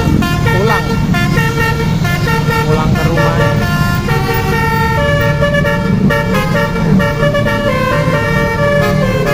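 Basuri 'telolet' multi-tone bus horns playing quick stepping melodies, several at once and overlapping, over the low rumble of the buses' engines. A short up-and-down whooping glide sounds under a second in.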